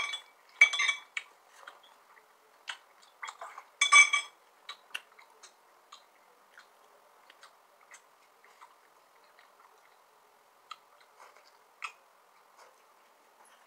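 Eating sounds from a bun handled over a foam tray: a few sharp clicks and clinks in the first second and again about four seconds in, then faint scattered ticks of chewing and handling.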